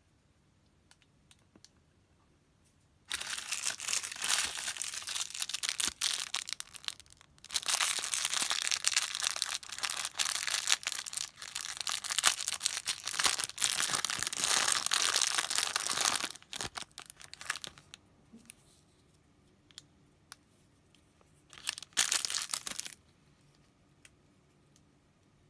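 A clear plastic bag crinkling and tearing as it is pulled open by hand, in two long stretches and a short burst near the end. Small plastic clicks of figures being handled come in the quiet moments.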